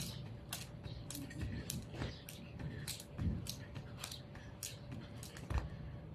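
A jump rope slapping the concrete pavement on each turn as someone skips, a steady rhythm of sharp slaps at about two a second, with a few duller thumps in between.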